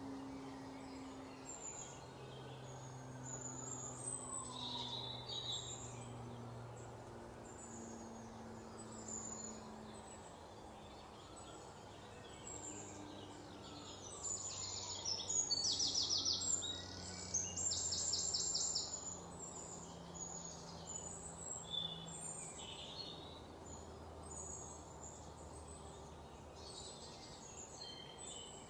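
Birds chirping and singing, with short high calls scattered throughout and two louder rapid trills about halfway through. Faint low steady tones run underneath.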